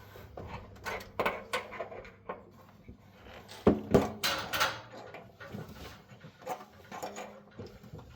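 Irregular clinks, knocks and short scrapes of hand tools and plumbing fittings being handled as a new water heater's lines are connected, with the loudest knocks a little past the middle.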